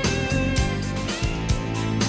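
Background music: a guitar-led song with a steady drum beat.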